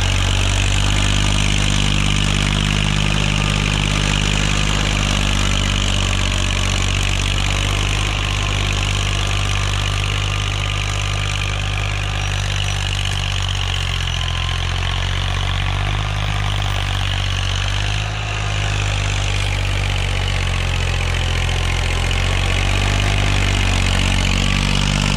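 Farm tractor's diesel engine running steadily under load as it pulls a rotary tiller through the soil, the engine note shifting slightly about two-thirds of the way through.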